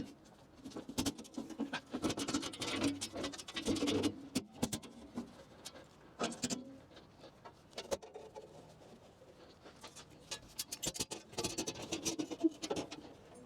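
Irregular scratching and rustling with scattered sharp clicks, in bursts: handling noise from hands at work close by.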